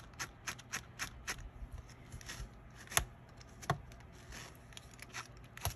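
Brush raking through crochet yarn strands to fluff them into fur, in quick short strokes about four a second, then slower strokes with a few sharper clicks.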